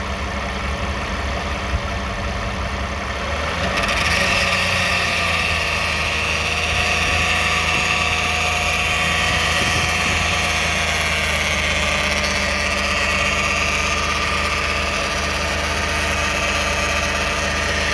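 2009 Toyota Sienna's 3.5-litre V6 idling in park, with a steady buzzing whine from the transmission that grows louder about four seconds in. A mechanic takes the buzz for a bad transmission oil pump.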